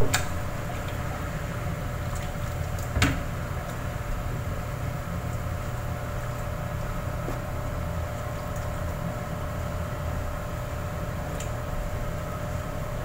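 Steady mechanical hum with a faint steady tone, and a single sharp click about three seconds in.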